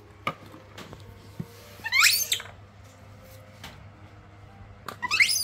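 Baby macaque monkey giving short, high squeals that rise sharply in pitch, twice: about two seconds in and again near the end. These are begging cries while its milk bottle is being readied.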